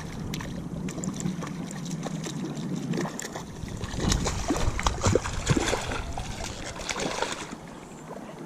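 Water splashing with irregular knocks and clicks, busiest and loudest from about four to seven and a half seconds in, over a steady low hum.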